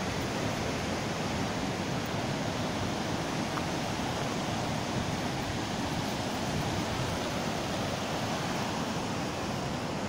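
Fast-flowing mountain stream rushing over rocks, a steady, even rush of water.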